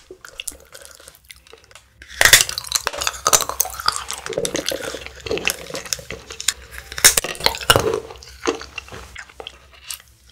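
Hollow chocolate shell being broken apart by hand, a dense run of sharp clicks, cracks and clinks of shell pieces on a wooden board starting about two seconds in and thinning out near the end.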